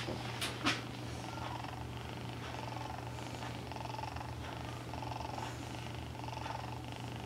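Bombay kitten purring steadily as it is held and stroked, with two light clicks about half a second in.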